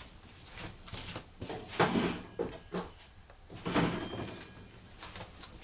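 Plastic packaging being handled, with a few short rustles and bumps, as a wrapped tool part is turned over to be opened. The two loudest come about 2 and 4 seconds in.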